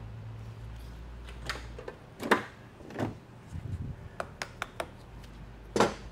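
Hand tools knocking and clicking against the case of a Ford 4R70W automatic transmission being torn down on a steel workbench. The sharp knocks are irregular: the loudest comes about two seconds in, there is a run of small clicks a little later, and a strong one comes near the end. A steady low hum runs underneath.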